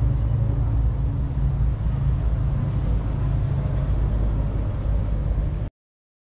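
Steady low engine and road drone of the VW Kombi under way, which cuts off suddenly to silence about a second before the end.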